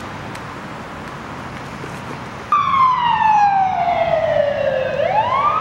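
Emergency vehicle siren wailing, starting abruptly about two and a half seconds in over a steady hiss. One long tone falls slowly in pitch, then begins to rise again near the end.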